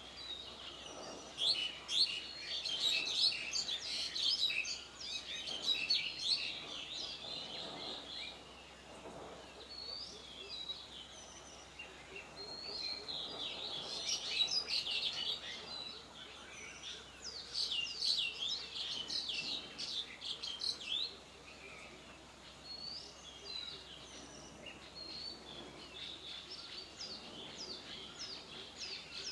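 Birds chirping and singing: dense runs of short, quick, high-pitched calls that come in several bouts with brief lulls between them.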